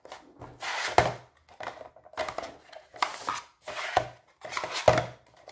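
Hard white plastic lure-compartment inserts of a Shimano spinning sling bag being lifted out, turned round and pushed back into the bag: a series of plastic clacks and scrapes, with sharp knocks about a second in and near the end.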